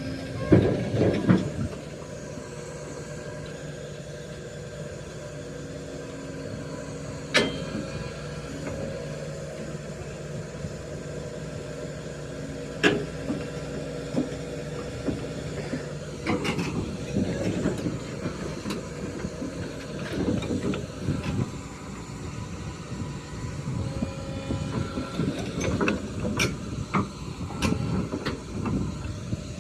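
Excavator's diesel engine running steadily, with a few sharp metallic clanks. The engine noise turns busier and more uneven in the second half, as the machine works.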